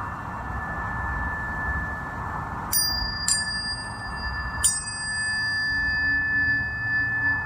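A tuning fork rings with one steady high tone. Three more forks are struck, about two and a half seconds in, half a second later and again over a second after that, each giving a bright metallic ping that rings on and slowly fades, over a steady hiss.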